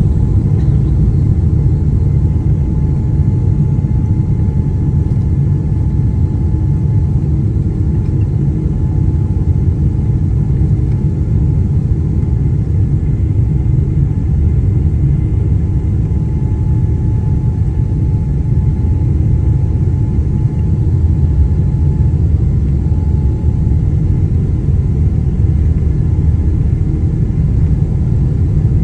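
Steady low rumble of a jet airliner rolling along the runway, heard inside the cabin, with a faint steady whine above it.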